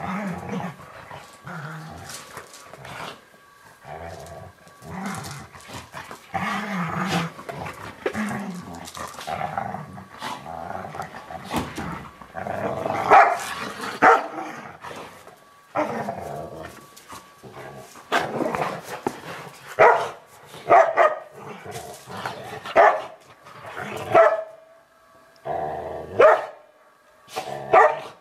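Two dogs play-fighting: low growling through the first half, then a string of sharp barks and snarls, the loudest in the second half.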